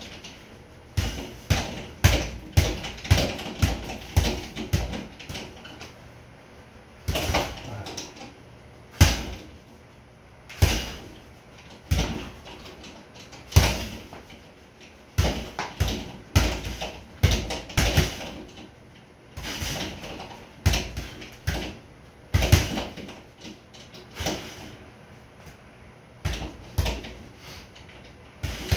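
Boxing gloves punching a sideways double-end (kangaroo) bag: sharp smacks, sometimes in quick flurries of several hits, sometimes single hits a second or two apart.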